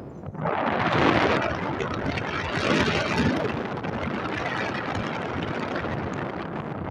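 Wind rushing and buffeting over the microphone in paragliding flight, louder in gusts about a second and three seconds in.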